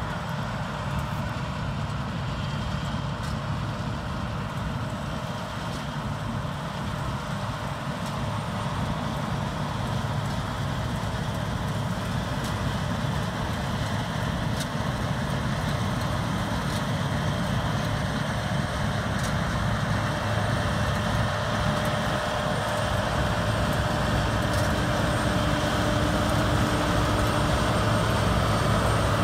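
Claas Lexion 570+ combine harvester running as it cuts spring barley with a Vario 750 header: a steady drone of engine and threshing machinery. It grows gradually louder as the combine approaches.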